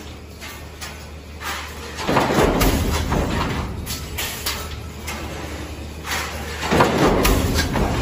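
Large multi-station metal stamping press with in-die riveting units running over a steady low machine hum. Twice, about five seconds apart, it gives a loud surge of noise lasting a second or two as the press goes through a stroke.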